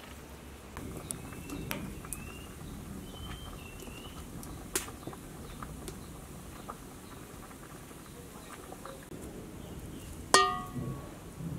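Cooking sounds: scattered small clicks and taps over a low steady background, then one sharp metallic clink near the end that rings briefly, like a metal utensil struck against a cooking pot.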